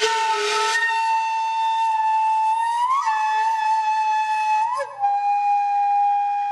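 Flute-like wind instrument playing a slow melody: long held notes with short upward slides between them, opening with a breathy attack.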